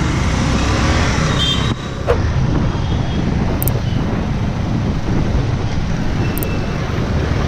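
Motorcycle riding through city traffic: the engine running steadily under a constant rush of wind and road noise on the camera's microphone. The level dips briefly about two seconds in.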